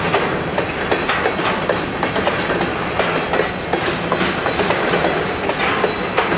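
Freight train of covered hopper cars rolling past, a steady rumble of wheels on rail with frequent sharp clicks as the wheels cross rail joints.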